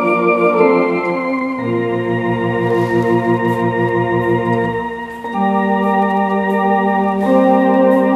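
Electronic home organ playing a slow hymn in sustained chords, the chords changing every second or two over slightly wavering low notes. A brief dip between phrases about five seconds in.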